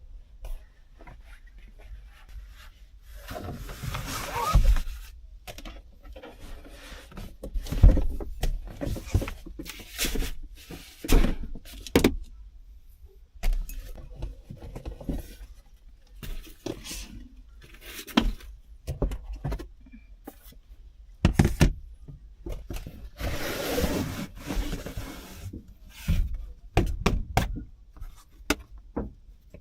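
Irregular knocks, clicks and clinks of small objects being handled and set down in a cramped space, with two longer rushing noises, one about four seconds in and one near twenty-four seconds.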